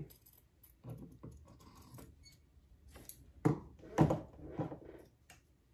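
Scattered taps, clicks and rustles of craft materials (fabric, hoop, scissors) being handled on a tabletop, with two louder knocks about three and a half and four seconds in.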